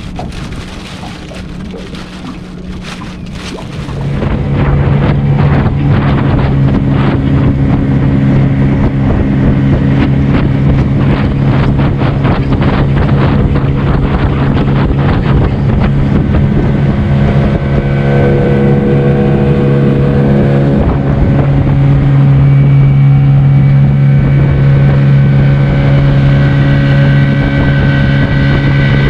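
Boat's outboard motor running, jumping much louder about four seconds in as the boat gets under way, then holding a steady drone, with wind on the microphone.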